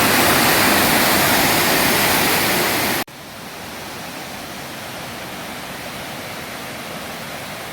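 Waterfall rushing loudly; about three seconds in it cuts off abruptly to a quieter, steady rush of falling water.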